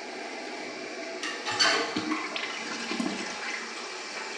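Old Mansfield toilet's water running and gurgling after a flush that failed, with louder gurgling splashes about a second and a half in and smaller ones around three seconds.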